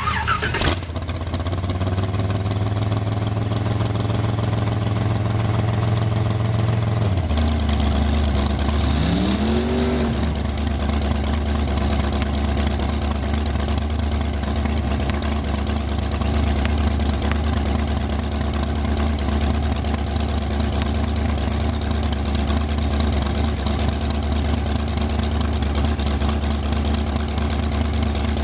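Dragster engine idling steadily, with one short rev about eight seconds in, after which the idle settles on a lower, even note.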